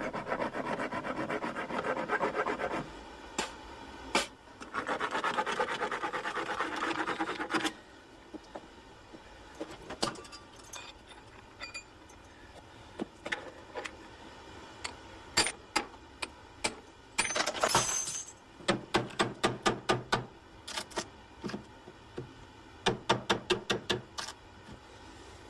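A hammer striking a chisel into a wooden door around its metal lock plate, in two quick runs of sharp blows near the end. Before that comes a long rasping scrape at the door, a pause, then more rasping.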